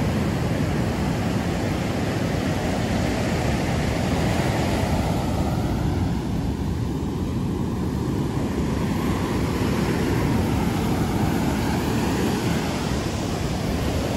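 Surf breaking and washing up the beach, under a steady low rumble of wind buffeting the microphone.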